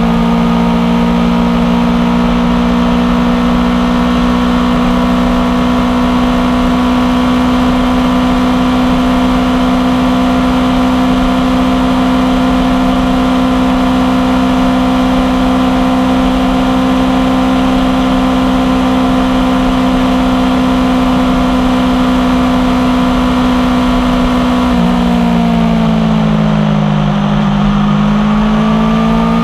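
Aprilia Tuono V4 1100 Factory's V4 engine through an unbaffled aftermarket exhaust, running at a steady, held pitch while riding. About 25 seconds in the note falls as the throttle comes off, then climbs again near the end as the bike accelerates.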